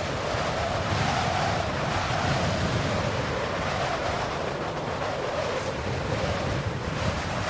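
Steady rushing noise, like wind or surf, with a faint hollow tone that drifts slowly in pitch.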